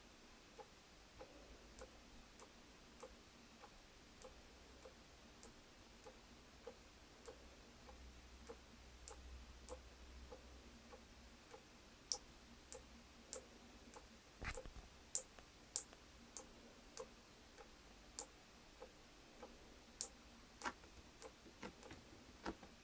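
Water dripping: faint, even drops, a little under two a second. There is one louder knock about two-thirds of the way through, and the drops come less evenly near the end.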